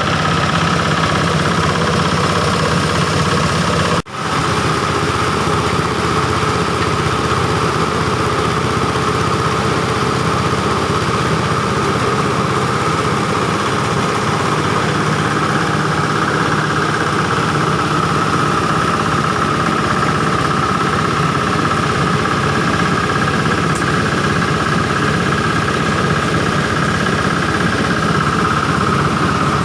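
Engine-driven oil palm frond chopper running steadily, engine and spinning chopper drum making a continuous drone with a high hum on top. The sound drops out for an instant about four seconds in, then carries on unchanged.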